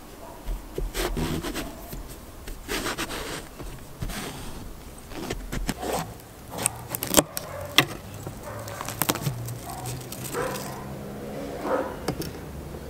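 Kitchen knife cutting lengthwise through the hard rind and flesh of an overripe zucchini on a wooden cutting board, then the fruit being split into halves: irregular crunching and scraping with sharp cracks.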